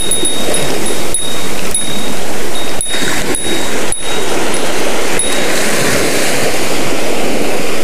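Surf washing on a rocky beach with wind on the microphone, and a small bell on a fishing rod's tip jingling in short irregular rings as the rod moves with a fish on the line. The jingling stops about five seconds in.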